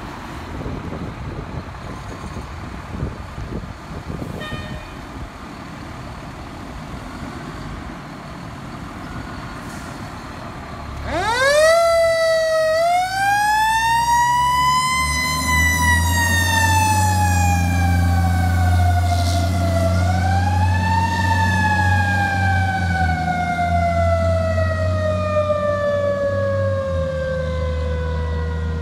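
Fire truck's mechanical siren winding up about eleven seconds in, rising to a peak and coasting down, then wound up again and falling slowly. Underneath runs the deep, steady rumble of the truck's diesel engine as it pulls out. Before the siren there is only street noise.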